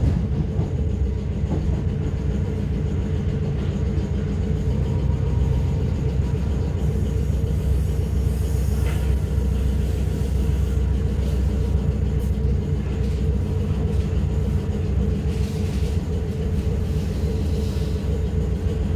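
Inside the passenger saloon of a Class 455 electric multiple unit running on the track: a steady rumble from the wheels and running gear, with a constant hum over it.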